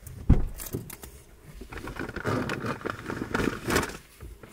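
A knock about a third of a second in, then scattered clicks and rustling as things are moved about inside a parked car.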